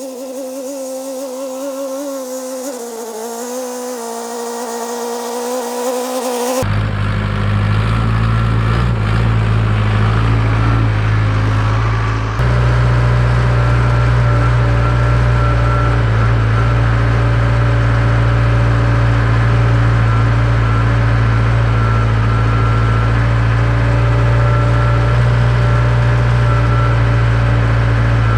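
Heavy diesel engine of earthmoving equipment running steadily at a low idle. For the first six seconds or so there is only a thinner, wavering hum with no low end; then the sound cuts abruptly to the deep, loud engine.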